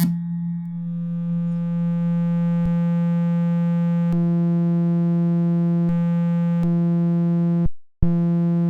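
FL Studio 3x OSC synthesizer holding a low, steady tone meant to imitate a phone vibrating. Its timbre changes several times, each change with a small click, as the oscillator waveform is switched. It cuts out briefly near the end, then returns.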